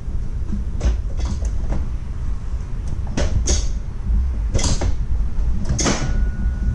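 Several separate clunks and knocks from parts being handled, with a steady low rumble underneath; about six seconds in, a thin steady beep begins and holds.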